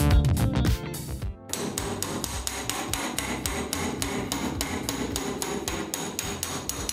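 Hammer striking a steel chisel to chip old ceramic wall tiles off their backing, in a steady run of sharp taps about four a second.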